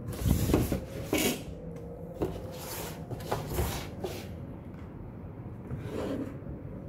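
Gear being handled at close range: a run of rustles, clicks and light knocks over the first four seconds, then quieter handling with a soft knock or two near the end.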